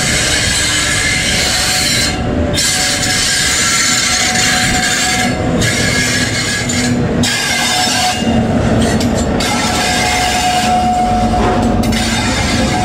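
InterCity 125 High Speed Train under way: a Class 43 power car's diesel engine holds a steady drone over the rumble of the coaches on the track.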